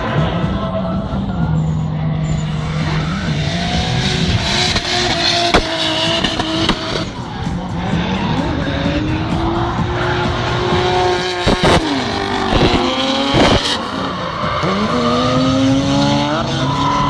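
Drift cars' engines revving up and down repeatedly, with tyres squealing and skidding as the cars slide through the corner. There are a few sharp pops about two-thirds of the way through.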